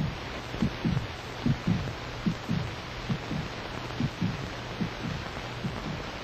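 Heartbeat sound effect: paired low thumps, lub-dub, a little more than one beat a second, with a steady hum and hiss underneath.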